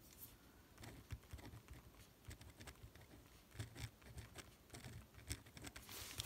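Faint scratching and light irregular ticks of a 0.5 mm gel pen writing on a paper card.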